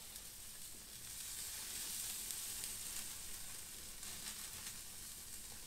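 A rack of ribs and potato wedges sizzling on a grill grate over an open wood fire: a steady hiss with faint crackles.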